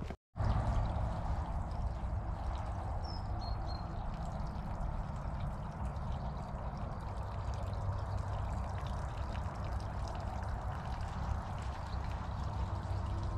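Water pouring from a small outfall into a drainage ditch: a steady splashing trickle that begins after a brief dropout at the start.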